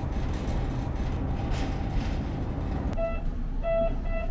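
Local diesel railcar running along the line: a steady rumble of wheels and engine heard from inside the car. About three seconds in, this gives way to three short electronic beeps inside the carriage.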